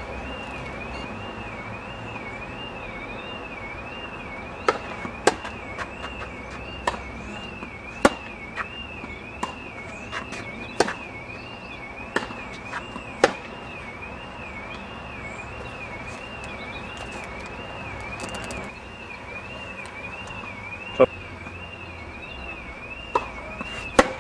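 Tennis balls struck by rackets and bouncing on the court during a rally: sharp pops, several close together in the first half and a few more near the end. A continuous high, warbling tone runs underneath.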